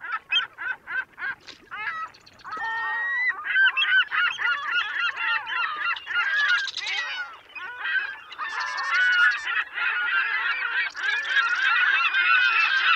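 Many birds calling at once: a few separate calls at first, then from about two and a half seconds in a thick chorus of overlapping calls.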